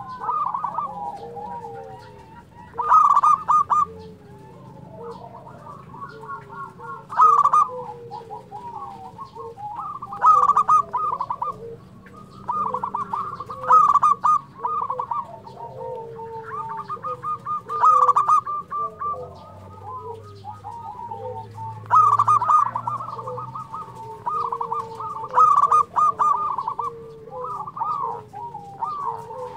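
Zebra doves (perkutut) cooing in the rolling, pulsed phrases typical of the species. A loud phrase comes every three to four seconds, with softer lower coos in between.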